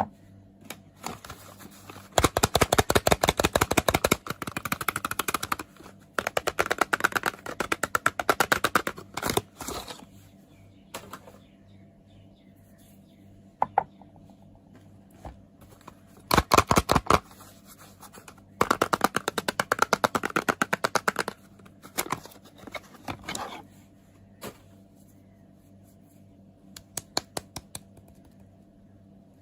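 Soap being unwrapped and handled close to the microphone: bursts of rapid, dry crackling lasting two to three seconds each, with scattered single clicks and scrapes between them.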